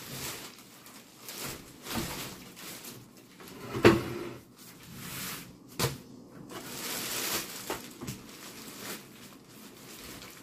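Clear plastic packaging rustling and crinkling as a folded stroller is pulled out of its bag. A sharp knock from the stroller frame comes about four seconds in, and a smaller one about two seconds later.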